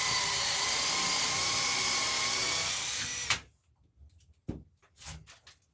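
Power drill with a 5/8-inch Forstner bit boring into the wooden edge of a door for a mortise lock pocket: a steady whine that stops sharply about three seconds in. A few light knocks follow.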